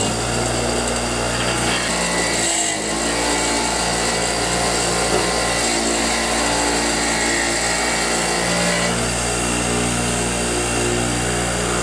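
Motor-driven wire wheel running steadily, brushing rust and grime off a steel socket, with a brief dip about two and a half seconds in.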